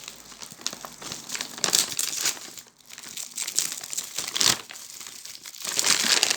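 Plastic packaging of a pack of dishwasher tablets being torn open and crinkled by hand, in irregular crackles with louder bursts about two seconds in and near the end.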